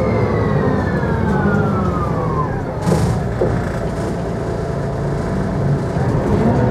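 Mercedes-Benz O405GN² articulated bus running, heard from inside: a steady low engine rumble, with a whine that falls steadily in pitch over the first two and a half seconds, then a short burst of hiss about three seconds in.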